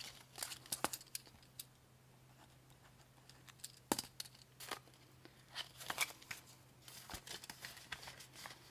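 Paper banknotes rustling as they are handled and slid into a clear plastic binder pocket, with crinkling of the vinyl sleeve and a few small taps. Quiet and intermittent, with a faint steady hum underneath.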